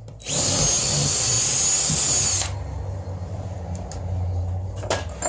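Cordless drill boring a pilot hole into OSB wall sheathing, the motor running steadily under load for about two seconds before stopping. A couple of sharp clicks near the end.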